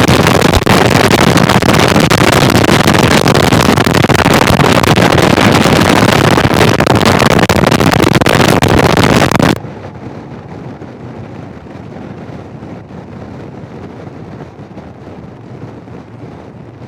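Severe wind noise roaring over the Sena 10C Evo intercom's external microphone, which opens fully when a Garmin GPS prompt disables the in-helmet microphone. About nine and a half seconds in it cuts off suddenly, falling back to much quieter motorcycle riding noise.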